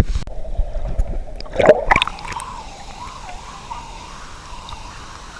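Water splashing and gurgling close to the microphone, loudest about one and a half to two seconds in, then settling into a steady rush of falling water.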